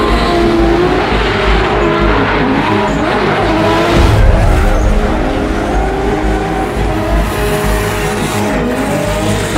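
Drift car engine revving up and down at high rpm as the car slides sideways, with the rush and squeal of spinning tyres.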